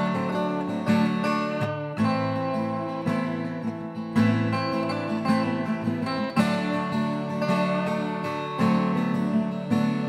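Background music: an acoustic guitar playing chords, with a new chord struck every second or two.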